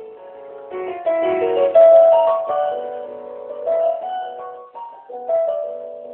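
Electronic keyboard playing a tango, a melody with accompanying chords, several notes sounding together. It starts soft and grows louder about a second in.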